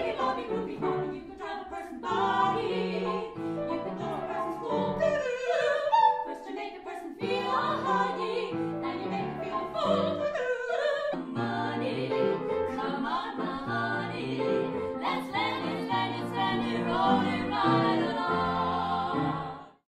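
Female vocal trio singing together in harmony, accompanied by piano.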